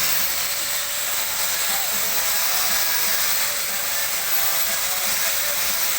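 Electric power tool motor running steadily, a constant whine over a loud even hiss.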